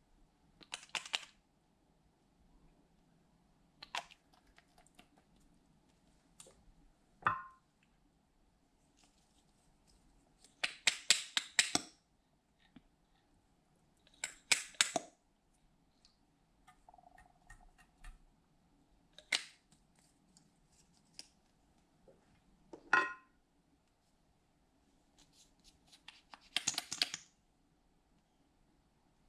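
Handling noise from small plastic bottles and tubes of colored glue being opened, squeezed and put down: about eight short clicks, scratches and rattles with quiet between them. Two of them are knocks with a short ring.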